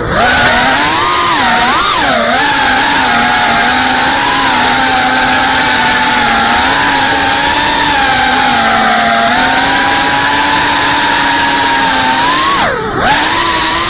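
GEPRC Cinelog 35 cinewhoop's brushless motors and propellers whining as it flies, heard from the onboard camera, the pitch wavering with the throttle. Near the end the whine drops sharply as the throttle is cut, then climbs straight back.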